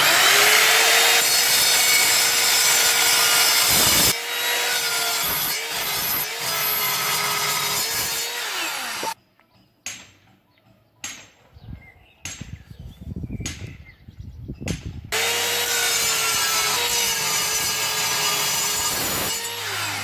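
Evolution Rage R210 SMS mitre saw cutting through metal flat bar. The motor whines steadily, and its pitch sags under load. It stops after about nine seconds, and some knocks follow as the bar is handled. It starts again about fifteen seconds in and winds down just before the end.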